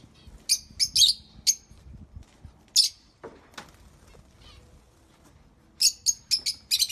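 Zebra finches calling: short, high chirps in quick clusters, a few about half a second in, one near three seconds, and a fast run of them near the end.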